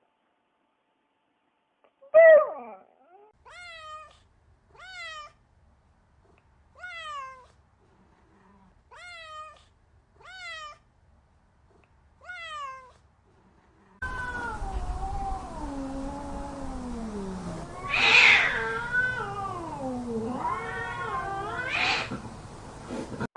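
Domestic cat meowing: a loud meow about two seconds in, then a string of short, evenly spaced meows. After that comes a noisier stretch of long, wavering yowls that rise and fall in pitch, loudest twice near the end.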